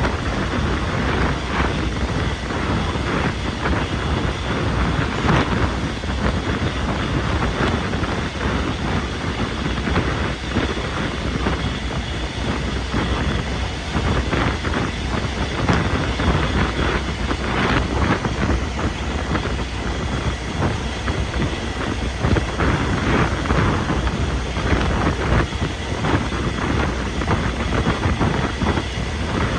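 A train running steadily, a continuous noise with no breaks.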